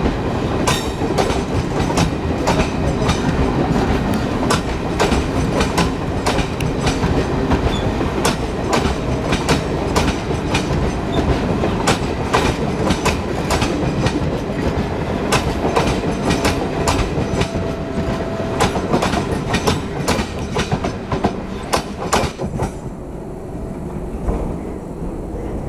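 Garib Rath Express coaches rolling past close by, a low rumble with a rapid stream of wheel clicks over the rail joints. About three-quarters of the way through, the clicking stops and the sound falls away as the last coach moves off.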